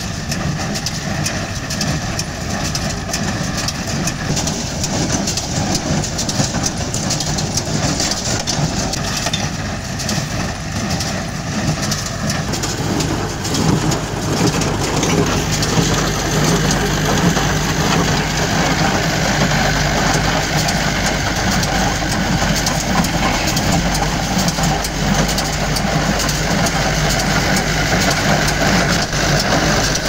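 Farm tractor engine running steadily while driving a small square baler that is taking in and packing rice straw. It gets louder from about halfway through.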